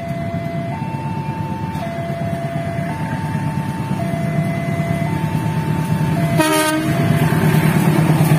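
Railway level-crossing warning alarm sounding a two-tone chime, switching between a low and a high tone about once a second, over the rumble of passing passenger trains. About six seconds in, an approaching diesel locomotive gives a short horn blast, and the train noise grows louder toward the end.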